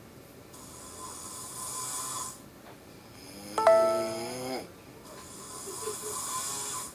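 A sleeping person snoring: a long hissing breath, then a loud pitched snore that starts suddenly about halfway through, then another hissing breath.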